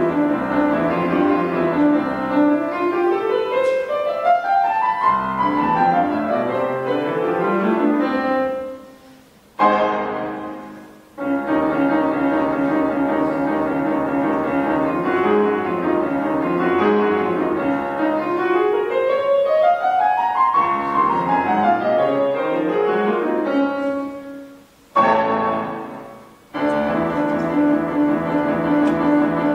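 Woodwind quintet (flute, oboe, clarinet, horn and bassoon) playing classical music in a concert hall, with long runs that climb and then fall back. Twice the music stops on a short, detached chord that rings briefly in the hall before the playing resumes.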